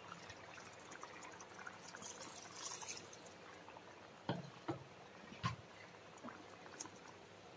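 Tamarind water poured faintly into a pan of simmering curry, then a few light knocks of a wooden spatula against the pan about halfway through.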